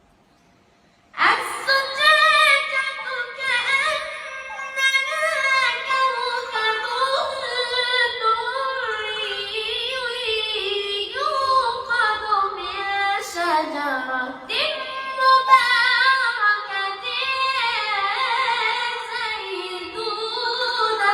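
A high voice reciting the Quran in melodic chant, with long held notes that glide and waver in ornamented runs, coming in about a second in after a brief silence.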